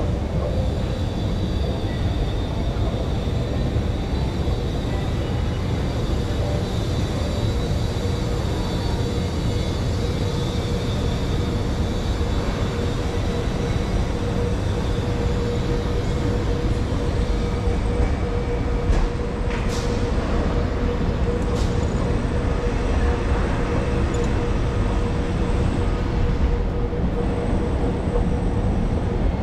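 Escalator running: a steady low mechanical rumble with a constant hum, and two short clicks about two-thirds of the way through.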